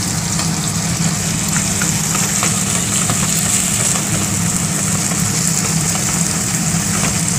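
Sliced onions and crushed garlic sizzling in hot mustard oil in a non-stick kadai, with a steady hiss and the spatula scraping and tapping the pan now and then. A steady low hum runs underneath.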